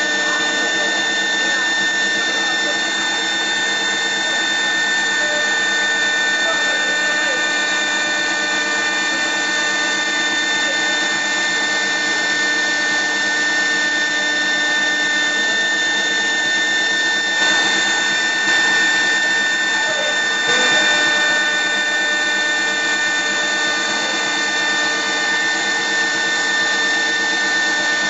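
CNC wood lathe running: a steady machine whine made of several fixed tones over a noisy hiss, with brief rises in loudness about 17 and 20 seconds in.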